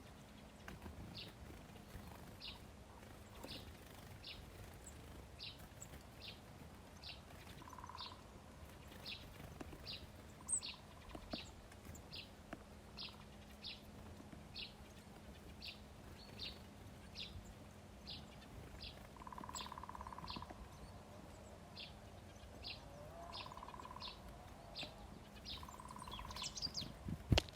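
A small songbird calling one short, high note over and over, roughly once or twice a second, with a few lower calls now and then.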